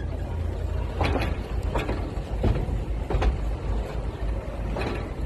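Narrow-gauge passenger train running, heard from an open carriage: a steady low rumble with a sharp clack every second or so.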